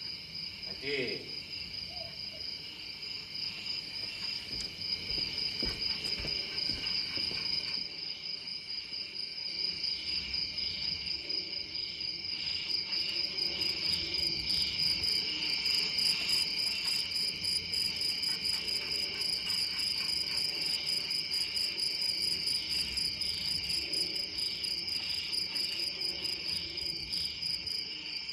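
Crickets chirping in a steady high chorus, a recorded night-time sound effect played over the darkened stage; a faster pulsing trill joins about halfway through.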